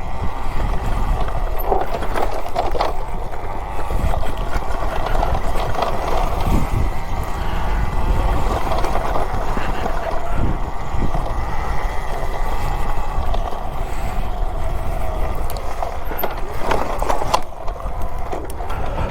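Talaria Sting electric dirt bike being ridden on a dirt trail: a steady rush of wind and tyre noise with drivetrain whir, and a few short knocks, about two seconds in and again near the end.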